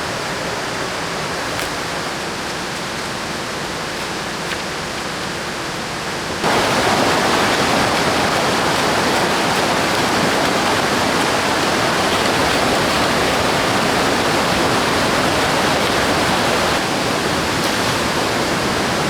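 Steady rush of river water, which jumps abruptly louder about six seconds in and stays loud.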